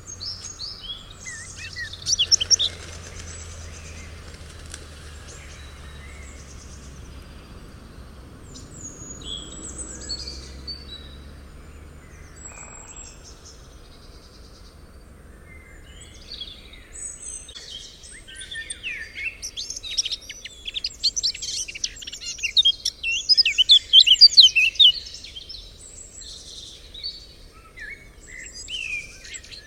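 Forest ambience of several birds chirping and singing, with short high calls coming and going and a busy burst of song in the second half.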